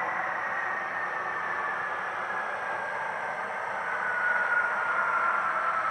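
Space shuttle orbiter Atlantis rolling out on the runway just after touchdown: a steady rushing noise with a high whine that slowly falls in pitch.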